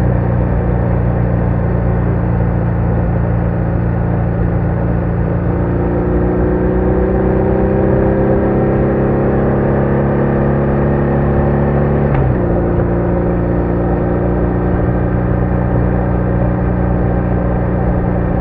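BMW R1200R's flat-twin boxer engine running under way. It holds steady at first, then pulls with slowly rising revs for about six seconds, drops sharply at an upshift about twelve seconds in, and runs steadily again.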